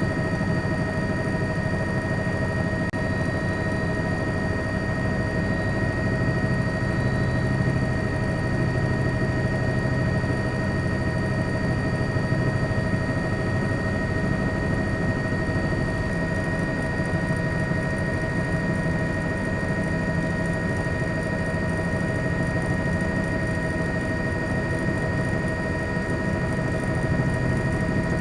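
A helicopter's steady engine and rotor drone, several constant whining tones over a low rumble.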